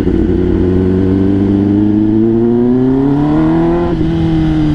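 Kawasaki ZX-10R inline-four engine running through an Arrow full-system exhaust with titanium headers, very loud. The engine note climbs steadily for about two seconds under throttle, then drops back near the end.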